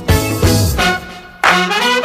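Instrumental break in a live swing-style band arrangement, led by trumpets and brass playing short accented chords. A loud brass hit comes in about a second and a half in.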